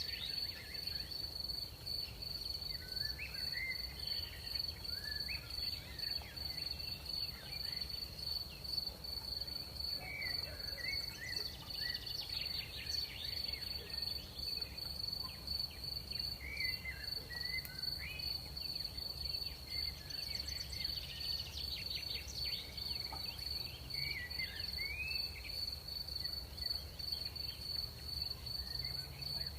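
Crickets trilling steadily on one high note, with short chirping calls every few seconds, over a low steady rumble of night ambience.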